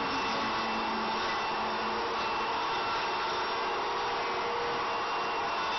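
Portable table saw's motor running steadily, an even whirring with no cut or change in pitch.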